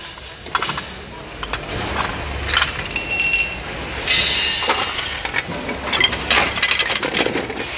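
Ceramic plates and saucers clinking and knocking together as they are picked up and handled, with a short ringing note about three seconds in.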